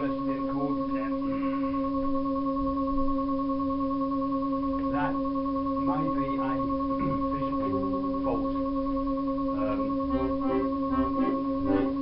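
Electronic accordion sounding one steady note without stopping, the sign of a sticking key that holds the note on. Clicks and knocks from handling the instrument come through it, and a few short notes are played near the end.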